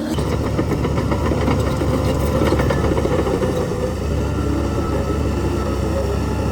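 Heavy diesel engine of earthmoving machinery running steadily with a deep rumble, with some fast metallic rattling over the first few seconds.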